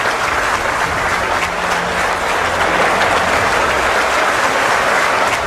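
A large audience applauding, with steady clapping.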